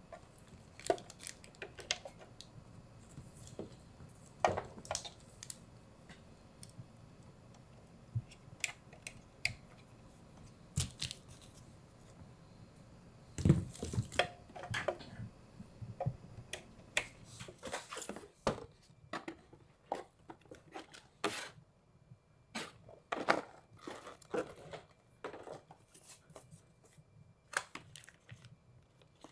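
Computer parts and their packaging being handled: scattered clicks, knocks and short rustles, with the loudest knock about thirteen seconds in and busier handling toward the end.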